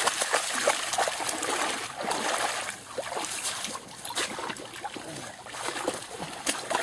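Shallow water splashing and sloshing as a black Labrador puppy wades through it. The splashing is busiest for the first couple of seconds, then eases to lighter trickling and dripping as the puppy reaches the edge.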